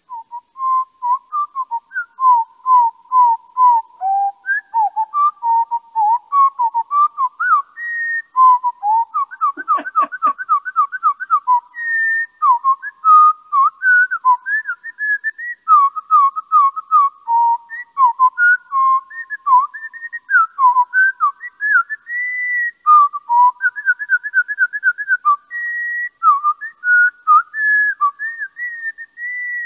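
Recording of a winter wren's song played back slowed down: a long, unbroken run of clear whistled notes, each sliding up or down in pitch, with quick runs of repeated notes forming trills. The slowing spreads the wren's very fast song into separate notes that can be heard one by one.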